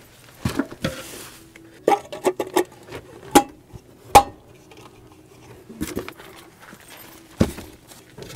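Chrome aftermarket center cap being handled and pressed onto a dually truck wheel's hub over the lug nuts: a string of sharp clicks and knocks, the loudest about four seconds in.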